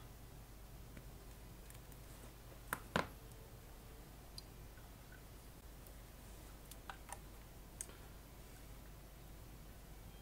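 Side cutters snipping wire leads to length: two sharp clicks close together about three seconds in, then a few fainter ticks of wire and tools being handled.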